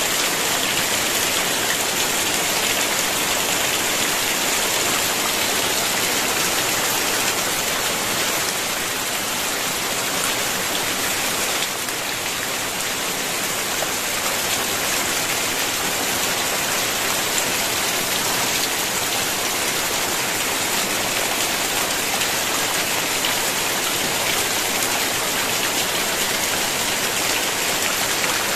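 Heavy rain falling steadily on roofs and dense foliage, with water streaming off the roof eaves.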